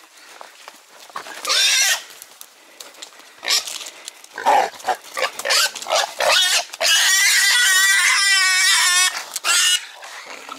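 Wild boar squealing: a short squeal about one and a half seconds in, a run of shorter squeals, then a long, loud, quavering squeal from about seven to ten seconds in.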